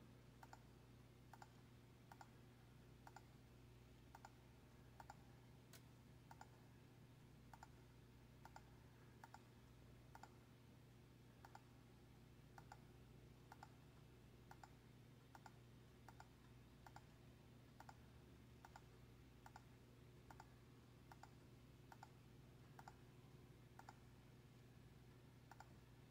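Near silence with faint, even clicks about twice a second over a low steady hum.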